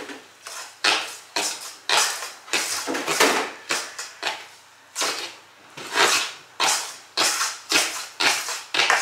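A utensil stirring and scraping thick cupcake batter in a saucepan, in quick repeated strokes about two a second.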